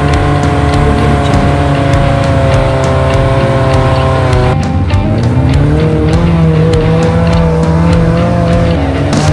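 Suzuki Katana (Jimny) 4x4 engine labouring under load up a steep muddy climb. Its pitch sags slowly, then about halfway through it drops and climbs back up as the revs change, and holds steady again.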